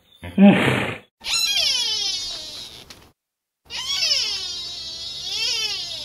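A hippopotamus gives a short, loud, low grunt, then a spotted deer makes two long whining calls, each starting high and sliding down in pitch, the second wavering up and down near its end.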